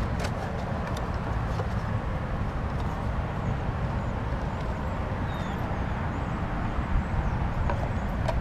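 Steady low rumble of traffic from a nearby highway, with a few faint taps and rustles as a cardboard box is opened.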